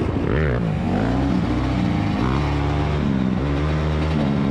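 Kawasaki KX85's single-cylinder two-stroke engine being ridden, revving up and down in the first second or so, then running at a steadier pitch with a couple of sudden pitch changes.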